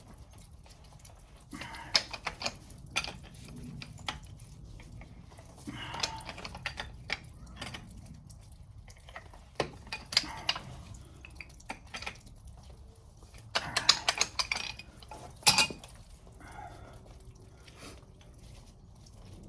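Metal wrenches clinking and knocking on a brass ball valve and its copper-line fittings while the old valve is unscrewed, in scattered clusters of sharp knocks with the loudest about fifteen seconds in.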